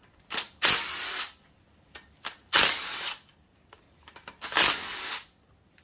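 Cordless impact driver running in short bursts, backing out the oil pump bolts on a 4.8 L LS engine block: four runs a second or two apart, the first very brief.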